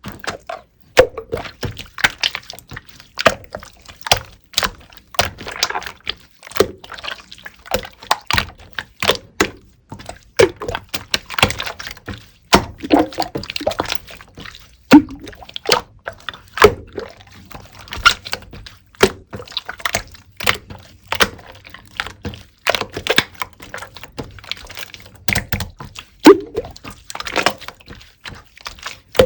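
Clear slime being pressed, folded and poked, making a continuous run of sharp, wet pops and clicks with sticky squelching between them.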